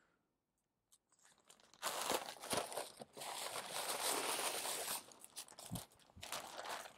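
Clear plastic packaging bag crinkling and rustling as a folded garment is lifted out of it, starting about two seconds in and thinning to scattered crackles near the end.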